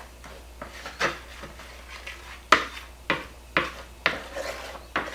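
Wooden spoon stirring a thick sour cream and salsa mixture in a mixing bowl, scraping and knocking against the bowl in a series of short, sharp strokes. The strokes come about every half second in the second half, the loudest about two and a half seconds in.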